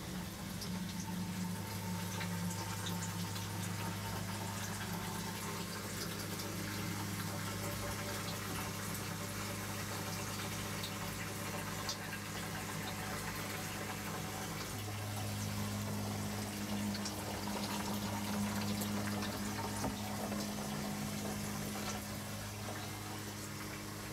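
Water running and trickling through a recirculating deep water culture hydroponic system, over a steady low electric hum.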